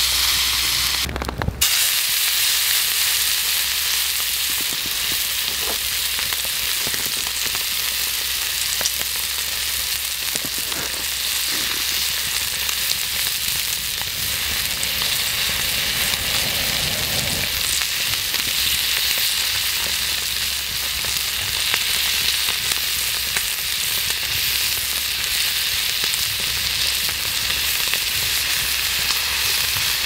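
A thick block of wagyu beef searing in a hot frying pan over a wood fire: a steady, dense sizzle, with a brief break about a second and a half in.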